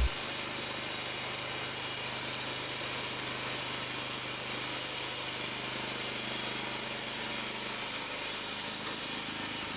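Sawmill running steadily, a continuous machine noise with a low hum, as it saws pine logs into lumber.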